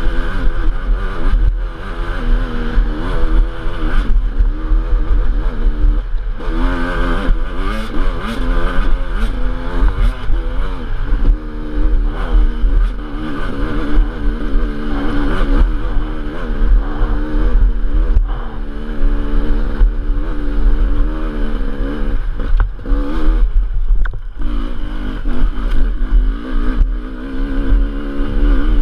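Enduro dirt bike engine, heard close from the bike, revving up and down without a break as the rider works the throttle over rough ground. The revs drop off briefly twice, about six seconds in and near the end.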